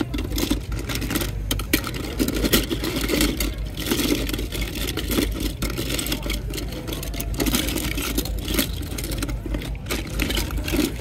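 Loose die-cast toy cars clattering and clicking against each other as they are rummaged through by hand, over a steady low rumble.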